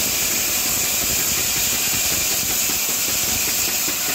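Diesel-driven vertical band saw running steadily, its blade cutting through a log, with a constant high hiss over a low engine rumble.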